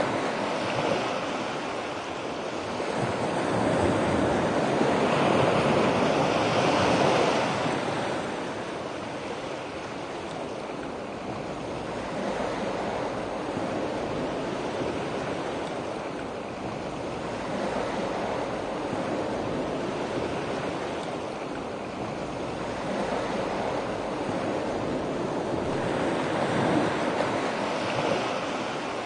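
Ocean surf washing onto a beach: a steady rush of breaking waves that swells and fades in slow surges, loudest about five seconds in.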